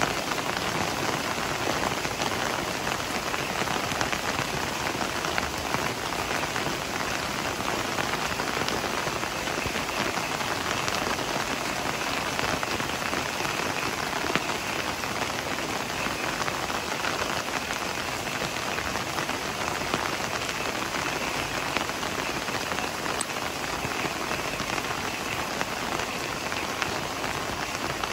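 Heavy rain falling steadily: a dense, even hiss with many close drops ticking on leaves.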